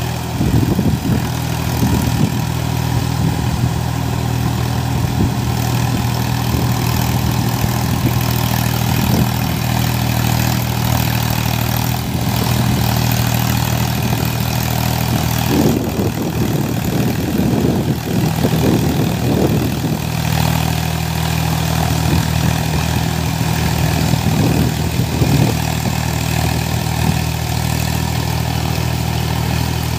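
Sonalika tractor's diesel engine running steadily under load while its Shaktiman rotavator churns through a flooded paddy field. The engine's low drone stays constant, with uneven rougher surges now and then.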